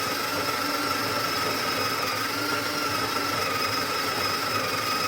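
Breville Barista Touch's built-in conical burr grinder running steadily while grinding coffee beans for an espresso shot, a motor hum with a steady whine over it; a really long grind.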